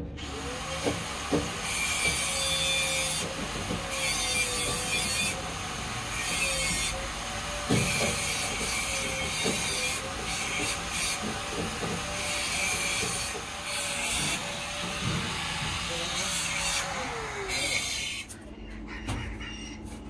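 A motor-driven tool runs for about eighteen seconds, its pitch wavering up and down, with a hiss that swells and drops in stretches of about a second and scattered knocks. It cuts off sharply near the end.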